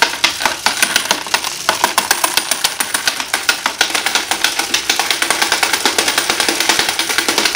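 Quarters being fed into a hand-cranked coin counter, the coins clattering through it as a rapid, dense run of metallic clicks and rattles while the crank is turned.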